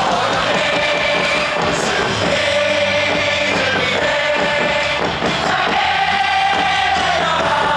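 A packed baseball-stadium crowd singing a cheer song in unison, a mass sing-along of many voices holding long notes that change every second or two.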